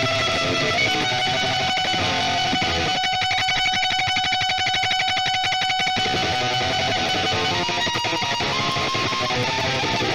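Electric guitar playing a lead line: a long high note held from about a second in to about seven seconds, with a fast, even flutter through its middle, then busier melodic notes near the end.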